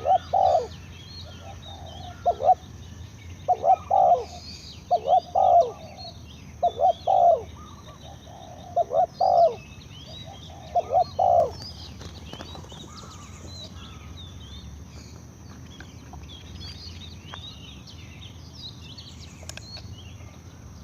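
Spotted dove cooing: a series of low phrases of two or three coos, repeated about every one and a half to two seconds, which stops about halfway through. Small birds chirp faintly in the background throughout.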